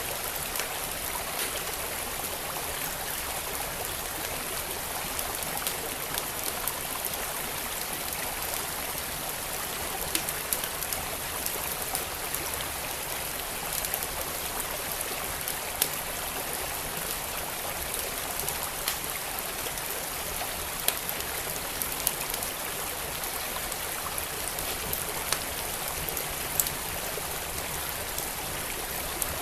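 Wood fire crackling, with a sharp pop every couple of seconds at irregular intervals, over the steady rush of a flowing stream.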